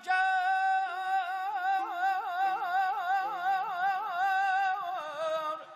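Male mugham singer holding a long, high sung note. Partway through it breaks into rapid wavering trills (the mugham tahrir), then glides down and stops near the end, over soft instrumental accompaniment.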